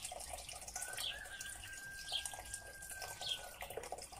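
Water pouring in a steady stream from an enamel kettle into a bowl of kefir.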